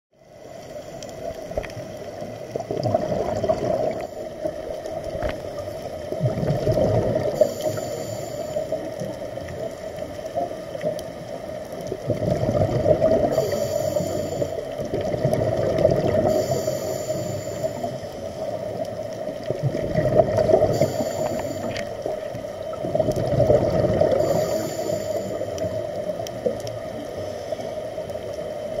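Scuba diver breathing through a regulator underwater: a short hiss of inhalation, then a bubbling exhalation, repeating every few seconds over a steady underwater hum.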